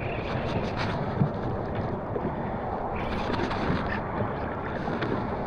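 Steady wind buffeting the microphone out on open water, with a few faint ticks.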